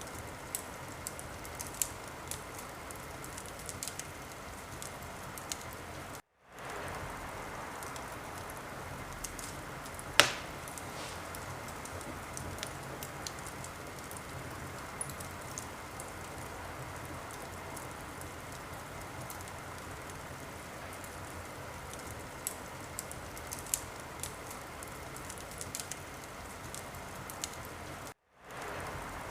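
Wood fire crackling in a fireplace, a steady hiss with frequent small pops and one sharp, loud pop about ten seconds in. The sound cuts out completely for a split second twice, once about six seconds in and once near the end.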